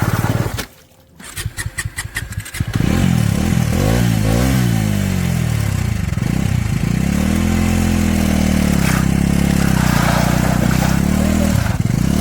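Motorcycle engine cuts out about half a second in, sputters with uneven firing pulses, then catches and runs, its pitch rising and falling as it is revved.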